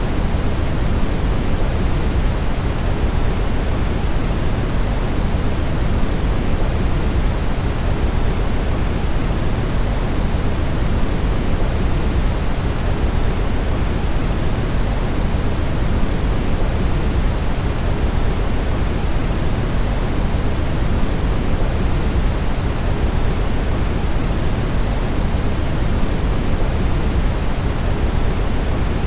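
Brown noise: a steady, even rushing hiss weighted heavily toward the low end, with a deep rumble and little treble, unchanging throughout.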